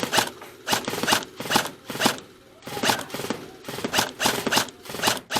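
Airsoft guns firing single shots, about a dozen sharp snaps at an uneven pace.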